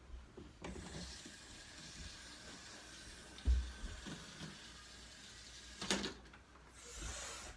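Electric model train engine running along its track, its small motor and gears whirring steadily. A low thump comes about three and a half seconds in and a sharp knock near six seconds.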